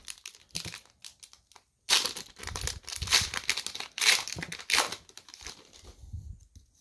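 Foil Pokémon booster pack wrapper crinkling and tearing as it is pulled open by hand, in a string of short rustles, loudest around two and four seconds in.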